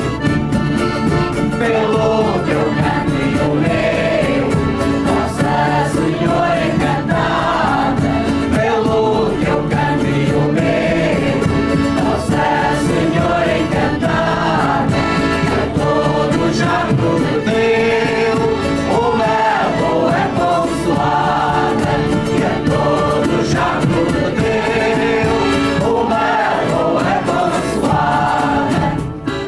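A group of voices singing together in chorus with musical accompaniment; the song ends just before the end.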